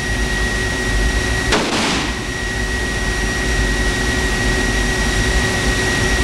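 A single short burst of noise about one and a half seconds in, as a bullet strikes an aircraft wire harness in a ballistic test. It sits over a steady, loud hiss and hum.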